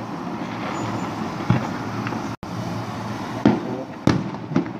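Fireworks salute bursts: four sharp bangs with short echoing tails, the loudest about three and a half seconds in, over a steady outdoor rumble.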